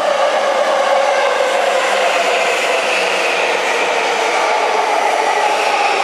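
JR East E235-series Yamanote Line electric train moving slowly past the platform. Its motors give a steady whine of several tones that drift slowly in pitch, over a steady rumble of wheels on rail.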